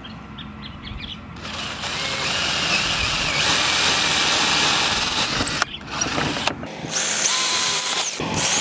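Cordless drill/driver boring holes through a 3/4-inch oak board. The motor starts about a second in and runs with a steady whine for about four seconds, then runs twice more after short pauses.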